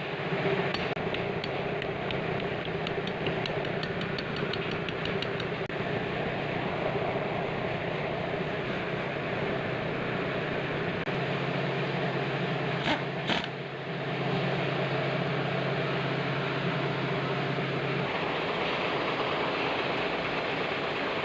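Car engine idling steadily. A run of light ticks comes in the first few seconds and two sharp knocks come just past the middle. A steady low hum joins the engine for several seconds in the second half.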